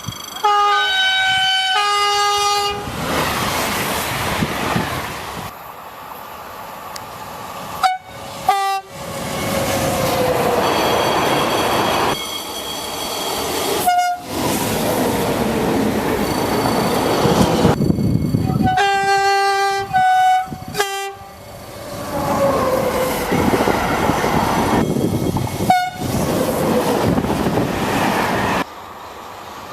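French SNCF train horns sounding short two-tone blasts, alternating between a lower and a higher note. Between the blasts come stretches of trains passing at speed with rolling wheel and rail noise, its pitch falling as they go by.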